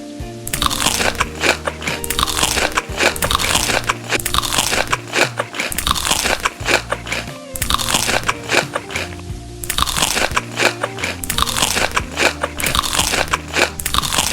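Close-up crunching of crisp food being bitten and chewed, in dense runs of sharp crackles, over background music with steady low notes.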